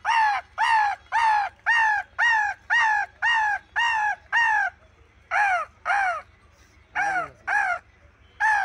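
A man imitating a crow with his voice: a quick run of harsh caws, each short and falling in pitch, about two a second. About five seconds in the run breaks into pairs of caws with short pauses between them.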